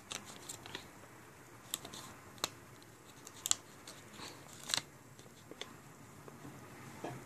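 Small handling noises of stiff paper and a wooden toothpick: scattered light ticks and rustles as a paper flag is worked onto a toothpick mast. The loudest ticks come about three and a half seconds in and again near five seconds.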